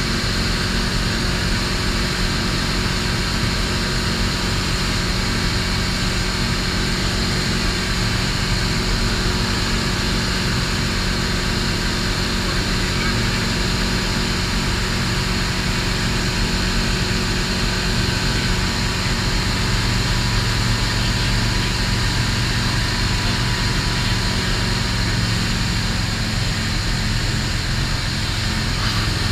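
Engine and propeller of a STOL CH 750 light aircraft, running steadily at a constant power setting.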